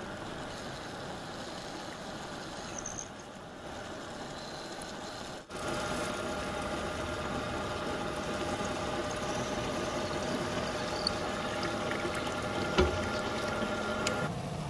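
Drilling machine running steadily as a twist drill cuts a hole in a splined SKD61 steel gearbox shaft under a stream of coolant, a steady hum with held tones. A single knock comes near the end, and the machine's running stops just before the end.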